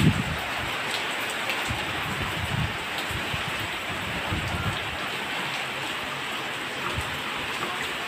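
Heavy rain falling steadily, a constant hiss. A few short low rumbles of strong wind gust against the microphone, the loudest right at the start.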